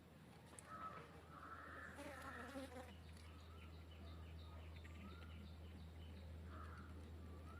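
Honey bee buzzing as a steady low hum, with faint chirps and light ticks over it.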